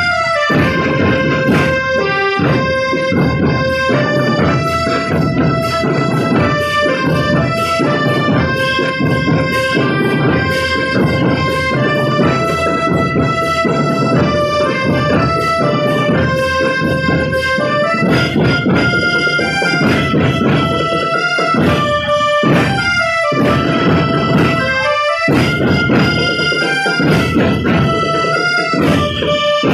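School marching drum band playing: a rapid stream of snare and bass drum strokes under a melody of held, reedy notes, with brief breaks in the drumming about two-thirds of the way through.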